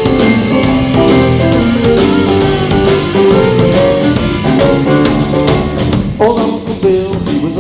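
Live band playing an instrumental passage of an up-tempo bluesy song, with drums and guitar under a lead melody that slides between notes about six seconds in.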